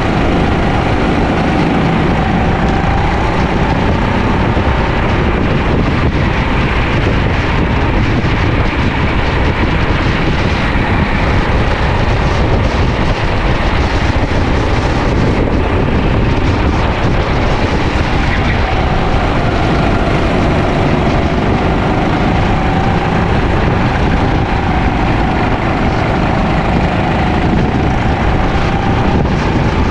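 Rental kart's small four-stroke engine running flat out on track, its pitch slowly rising and falling with speed, under heavy wind rumble on the onboard camera.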